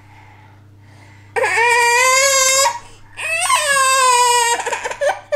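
A toddler's high-pitched cries: two long, drawn-out wails, the first starting about a second and a half in.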